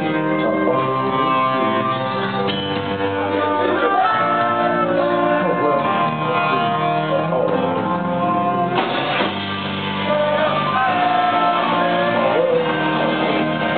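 Live punk band playing a song with singing, heard from the audience: keyboard, bass guitar and saxophone in the band. The music gets fuller and brighter about nine seconds in.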